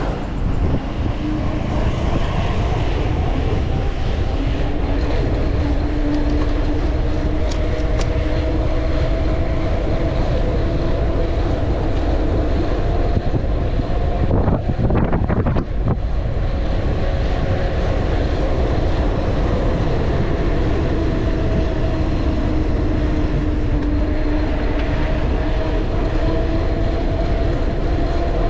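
Wind buffeting the microphone of a mountain bike speeding downhill on asphalt, under the steady hum of knobby tyres on the road, which drifts slowly up and down in pitch with speed. About halfway there is a brief rattle of knocks, like the bike jolting over a bump.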